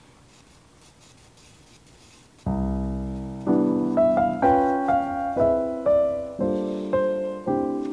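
Faint room sound, then piano music starts about two and a half seconds in: slow notes and chords, each ringing out and fading.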